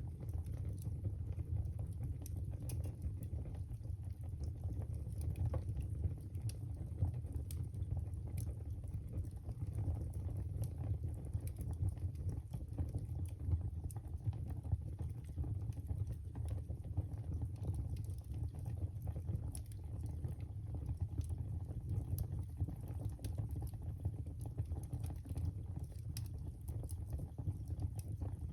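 Wood fire crackling in a fireplace: frequent small, irregular pops and snaps over a steady low rumble.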